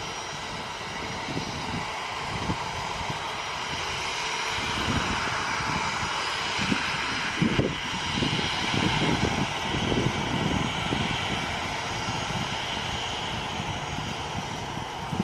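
Boeing 737-800's CFM56-7B turbofan jet engines running close by: a steady jet rush, with uneven low gusts of noise underneath that are heaviest in the middle.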